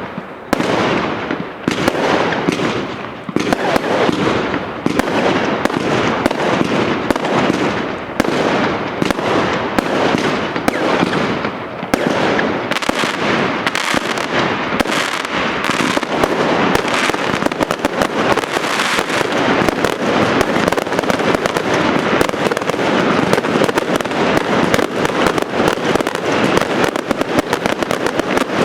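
Firework batteries firing in rapid succession: a dense, continuous string of bangs and crackling, packing even tighter from about halfway through.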